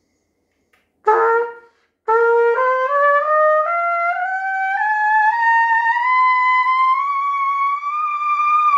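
Trumpet played through a Curry 70C mouthpiece. One short note comes about a second in, then an unbroken scale climbs step by step into the high register as the player tests how easily the mouthpiece reaches high notes.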